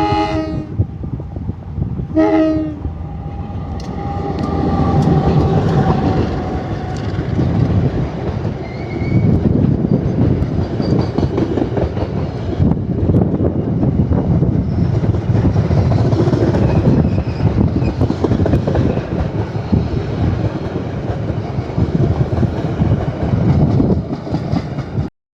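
Train horn blowing twice: a blast that ends within the first second, then a short toot about two seconds in. After that comes a passing train's steady rumble, with wheels clicking over the rail joints, until the sound cuts off abruptly near the end.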